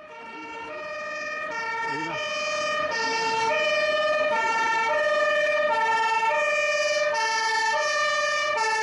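Fire engine two-tone sirens sounding, high and low notes alternating about every half second, fading in over the first few seconds.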